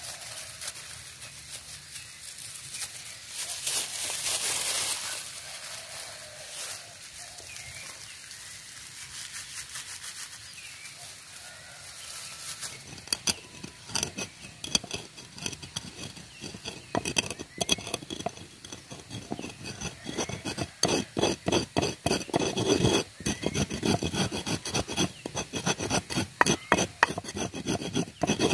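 Stone pestle grinding dry spice seeds in a shallow mortar: quick, repeated grating and scraping strokes that begin about halfway through and get louder, after a quieter first half of light handling.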